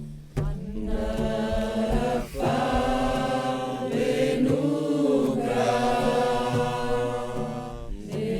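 A group of voices toning in long, sustained notes over a low steady drone, in sound-healing chant. The notes break and change about two seconds in and again near the end.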